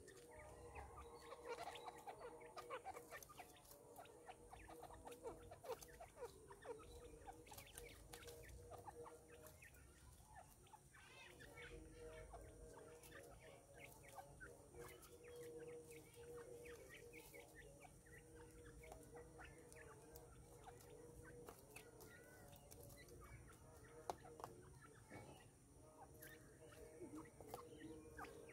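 Grey francolins making faint short calls, many in quick succession.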